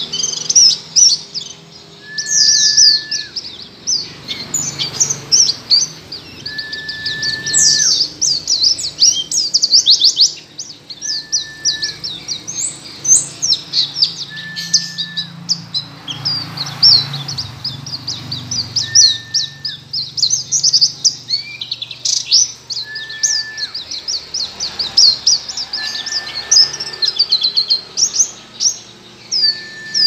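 White-eye (Zosterops) singing a fast, unbroken twittering song of high chirps. A separate, lower level whistled note sounds about every three to four seconds.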